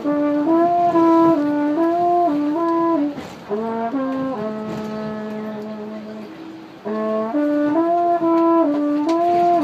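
Trombone played inside a subway car: a short phrase of notes stepping up and down, then one long held low note, then the same phrase again.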